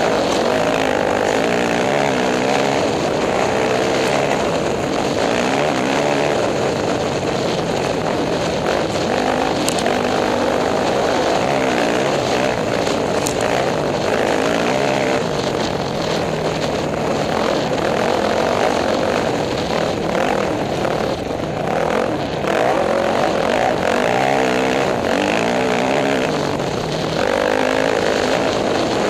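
Dirt bike engine running hard at race pace, its revs rising and falling with throttle and gear changes, heard from a helmet camera with rushing wind noise.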